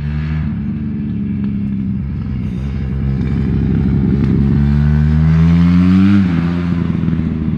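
Road vehicle with a loud, modified exhaust accelerating hard as it passes. The engine note climbs steadily for a few seconds, gets louder, then drops sharply about six seconds in as it changes gear or lifts off. The exhaust is far from road-legal by the listener's judgement.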